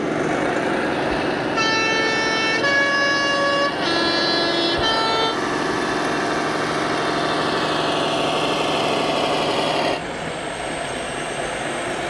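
Sound module of an RC scale Swiss postbus playing its three-tone post horn: a short tune of held notes, middle, high, low, then the middle note again briefly. A steady running sound follows and drops off suddenly about ten seconds in.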